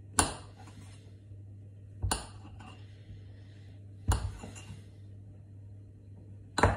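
Four sharp clinks of hard objects being knocked or set down, about two seconds apart, each with a brief ring. A steady low hum runs underneath.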